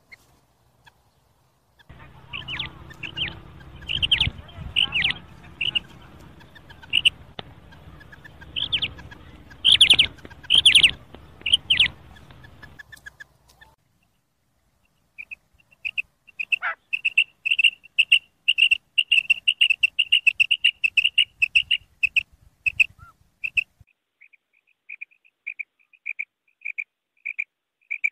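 Female common quail giving its short 'kirak' call, the call quail hunters use as a lure. First comes a scattered run of sharp calls over a hiss of background noise. After a short gap there is a quick, clean series of calls that spaces out toward the end.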